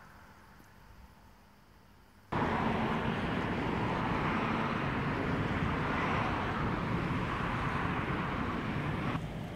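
Faint quiet outdoor background, then, about two seconds in, a loud, steady rushing noise cuts in abruptly with a fluttering low rumble. It eases slightly just before the end.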